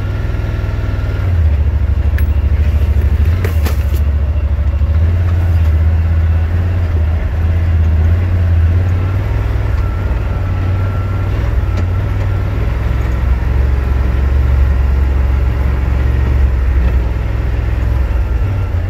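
Yamaha RMAX 1000's parallel-twin engine heard from inside the cab, a steady low drone as engine braking holds the side-by-side back at a walking pace on a steep rocky descent in high range. A couple of sharp clicks come in the first few seconds.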